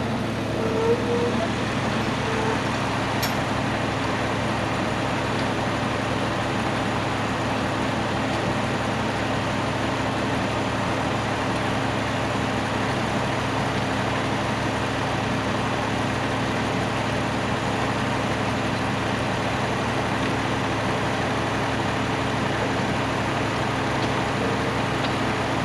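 Tractor engine running steadily at an even speed, with a low, regular pulsing beat.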